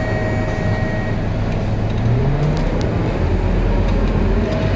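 Scania K230UB city bus's diesel engine and ZF Ecomat 6HP 504C automatic gearbox, heard inside the passenger cabin, running under way. The engine note rises about two seconds in as the bus accelerates.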